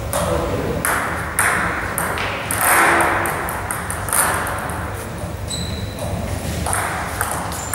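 Table tennis ball clicking off bats and the table during a rally, each hit echoing in a large gym hall.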